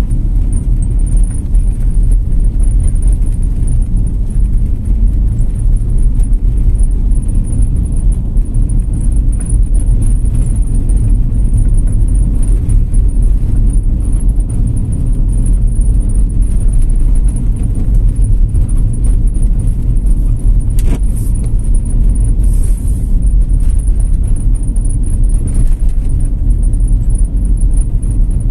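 Car cabin noise while driving: a steady low rumble of engine and tyres on the road. There is one brief tick a little past the two-thirds mark.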